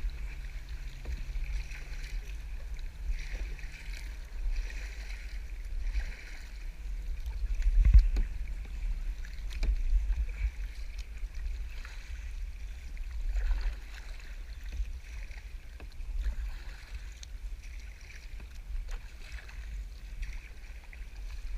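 Kayak paddle splashing in sea water stroke after stroke, every second or two, over a steady low rumble of wind buffeting the microphone, with one louder thump about eight seconds in.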